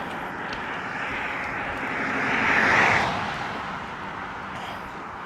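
A vehicle passing by on the road, its noise swelling to a peak about three seconds in and then fading away, over steady wind noise on the microphone.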